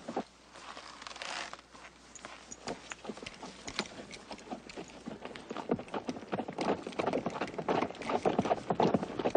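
Horse hooves clip-clopping in an irregular run of knocks that grow louder in the second half.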